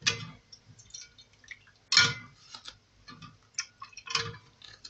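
Dry, crisp roqaq pastry sheets crackling and tapping as they are handled and dipped into a metal bowl of broth and milk: a run of sharp clicks and crackles, with three louder ones about two seconds apart and small ticks between.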